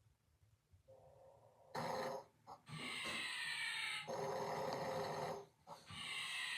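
Snoring that is quiet for the first second or so, then comes loud and repeated from about two seconds in: several long snores, each with a high whistle that falls in pitch.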